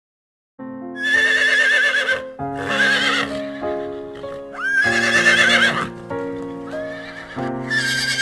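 A horse whinnying, four wavering high calls of about a second each, over a children's song with a steady melody that starts about half a second in.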